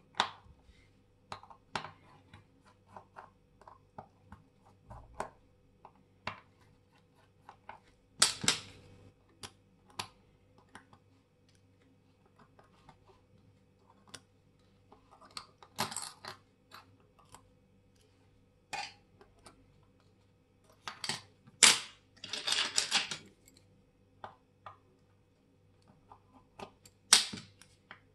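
Small metal watch parts and tweezers clicking and tapping on a hard bench in scattered light ticks, with a few louder metallic clatters, one lasting over a second about three-quarters of the way in.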